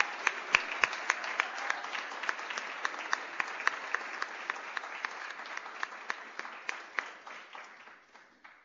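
Audience applauding, with a number of sharp individual claps standing out, tapering off and dying away near the end.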